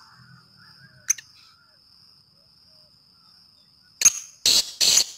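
Francolin (teetar) calling: a run of loud, harsh, grating notes starting about four seconds in, three in quick succession. A steady high whine sits underneath, with one sharp click about a second in.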